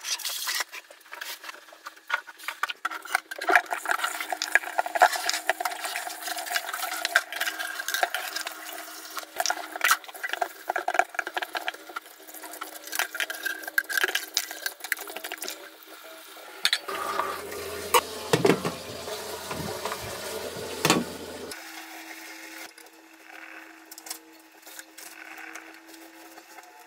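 Household kitchen cleaning: a cloth wiping an enamel stove and tiles, and a plastic cup and dishes knocking and clattering at a steel sink with the tap running. The clatter comes as many short, irregular knocks.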